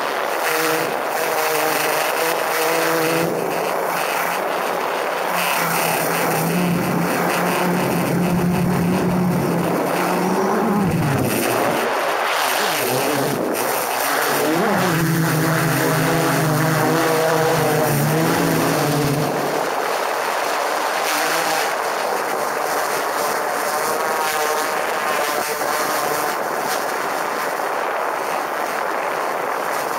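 DJI Inspire 1 quadcopter's rotors whining in flight, picked up by a camera slung right under the drone, with a rushing hiss of air. The low hum dips and swoops in pitch around ten seconds in and again around fifteen seconds as the drone manoeuvres, then fades after about twenty seconds, leaving a higher whine and hiss.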